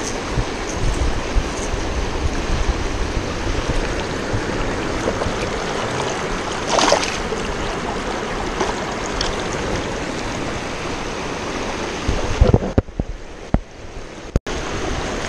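Shallow river rapids rushing steadily and loudly, with a brief splash about seven seconds in. Near the end the water sound drops and goes muffled for a couple of seconds, broken by a few knocks.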